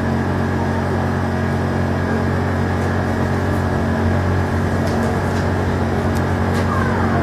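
A steady low hum under a constant rushing noise, unchanged throughout.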